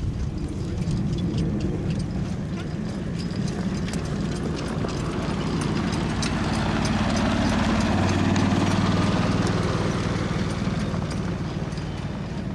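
Hoofbeats of a Welsh pony trotting on grass, pulling a carriage, heard as sharp clicks over a steady low rumble. A low hum strengthens about eight seconds in.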